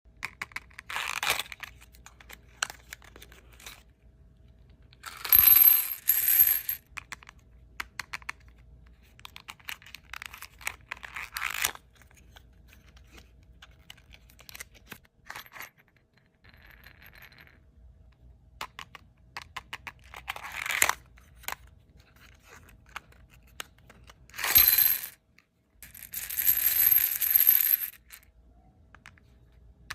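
Packaging being handled and opened: crackly crinkling and tearing in several loud bursts, with small hard pieces clicking and clattering between them.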